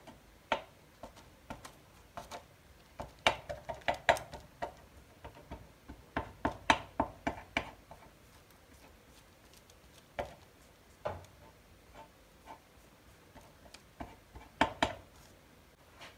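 Metal fork pricking pizza dough on baking paper: quick, irregular taps in bursts of several, with single pokes between.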